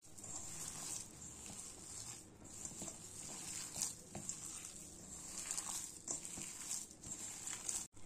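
A hand kneading and squeezing a thick, coarse urad dal dough in a stainless steel bowl: faint, irregular squishing with small scrapes and taps against the bowl.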